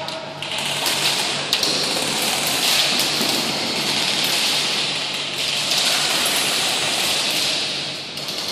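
Dense airsoft gunfire from many guns at once, BBs pattering against plywood walls, with a few sharper cracks standing out now and then; the sound echoes around a large warehouse.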